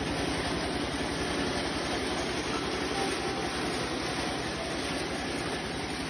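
TAGRM small corn harvester running steadily as it harvests standing corn: an even, fast engine beat under a steady rush of machine noise.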